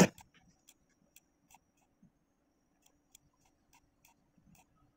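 Computer mouse clicking: one sharp, loud click at the start, then faint, irregular ticks.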